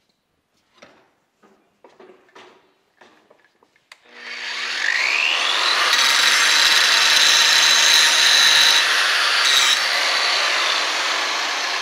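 A few light knocks of handling, then an electric Makita angle grinder spins up with a rising whine about four seconds in and grinds against a steel lawnmower blade clamped in a vise: a spark test of the blade's carbon content. The grinding runs on loud and steady, easing slightly near the end.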